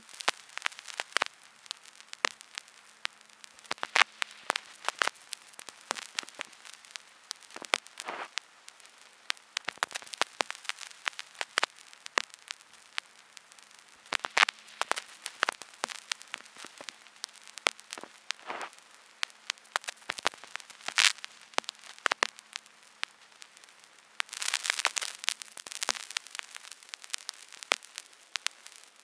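Vinyl record surface noise: irregular pops and clicks over a faint hiss and a faint steady low hum, with a denser burst of crackle late on.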